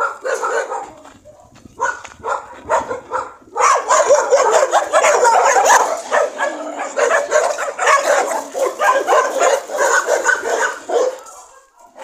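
Many dogs barking and yipping. Scattered barks at first, then from about four seconds in a dense chorus of many dogs barking over one another, thinning out near the end.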